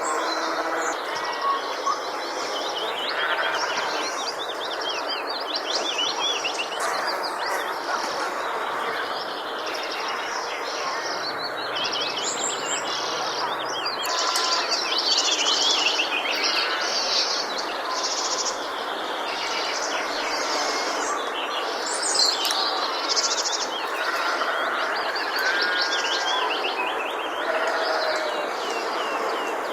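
Countryside bird chorus: many birds chirping and singing over one another without a break, over a steady background hiss.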